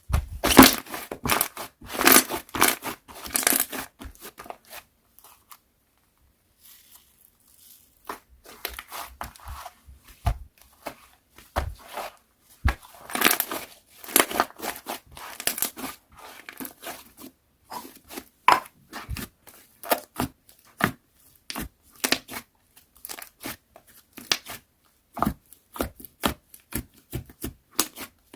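Slime being pressed, squeezed and stretched by hand, making irregular crackling and popping, with a brief pause about five seconds in.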